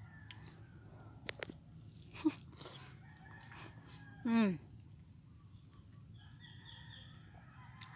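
Steady high-pitched chorus of crickets or similar insects. A rooster crows faintly in the distance near the end, and a short falling vocal sound comes about four seconds in.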